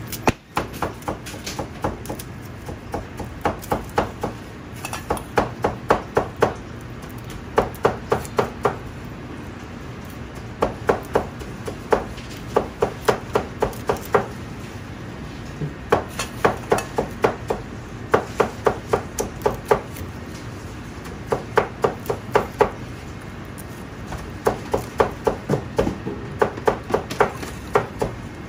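Garlic cloves being peeled with a small knife over a stainless-steel bowl: short runs of four to six quick, sharp clicks every second or two as the knife and cloves knock against the bowl, over a steady low hum.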